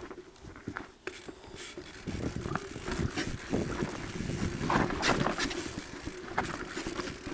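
Downhill mountain bike rattling over a rough dirt trail: irregular knocks and clatter from the bike with tyre noise on loose dirt, growing louder about two seconds in.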